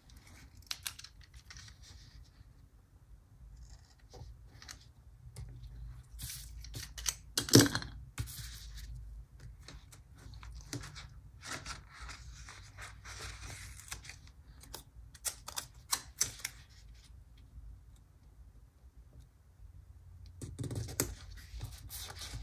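Washi tape and planner stickers being handled and pressed onto a paper planner page: scattered light taps and clicks with stretches of soft rustling, the loudest a sharp click about seven and a half seconds in.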